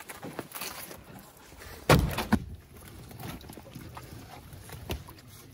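Thuds of lumpfish and net being handled on a small open boat: a loud heavy thud about two seconds in, a second just after it, and a sharper knock near the end.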